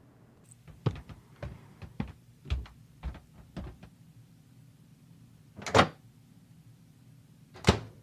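Light footsteps for about three seconds, then two louder door thuds about two seconds apart: a kitchen appliance door being opened and shut.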